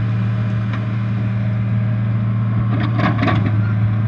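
Engine running steadily at idle, a constant low hum, with a short burst of broader noise about three seconds in.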